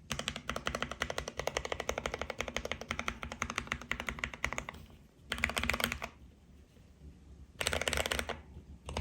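Typing on a 60% mechanical keyboard with lubed Akko Jelly Pink linear switches and a foam-lined case: a fast, dense run of keystrokes for about four and a half seconds, then two shorter bursts of typing with pauses between.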